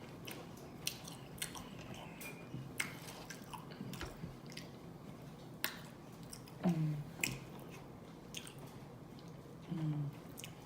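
Close-up chewing of chicken wings: wet mouth clicks and smacks at irregular intervals, with two short murmured sounds from the eater, about two-thirds in and near the end.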